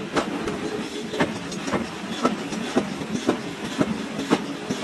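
Forging hammer blows on a white-hot steel billet: sharp knocks, evenly spaced at about two a second.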